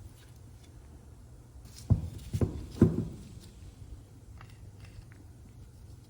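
Three sharp knocks in quick succession, about half a second apart, over a steady low hum.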